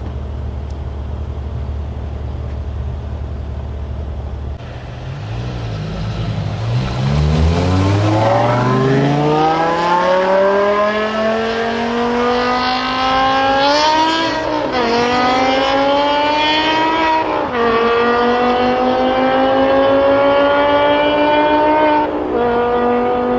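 BMW M5 V10 with SuperSprint exhaust idling at the start line, then launching hard in a drag race: the engine note climbs steadily under full throttle, with upshifts dropping the pitch about three-quarters of the way in and again near the end.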